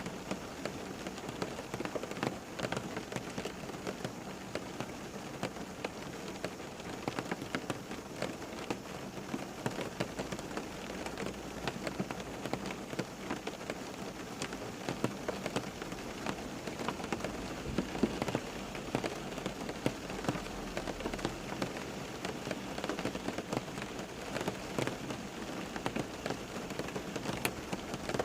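Steady rain falling on a surface, with many individual drops pattering and a faint low rumble underneath.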